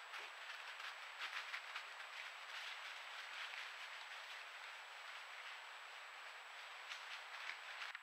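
Crackling rustles of a small animal's feet in dry fallen leaves, clustered in the first two seconds and again shortly before the end, over a trail camera's steady hiss and thin high whine.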